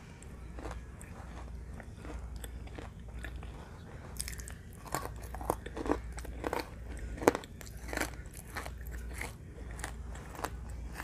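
Close-up mouth sounds of a person biting and chewing crunchy pieces of eating clay. The crunches come irregularly and get louder and more frequent in the second half, with one sharp crunch about seven seconds in.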